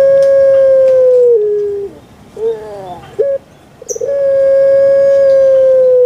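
Puter pelung, a long-cooing strain of Barbary dove, giving its drawn-out coo. A long, level note is held and then steps down in pitch, ending a little under two seconds in. A couple of short falling coos follow, and a second long note begins about four seconds in.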